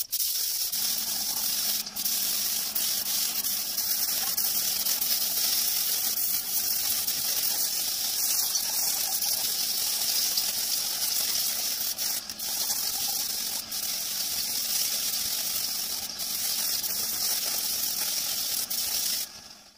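Gravity-feed compressed-air spray gun hissing steadily as it sprays two-part PU clear coat, with a few brief dips where the trigger is eased. It cuts off sharply near the end.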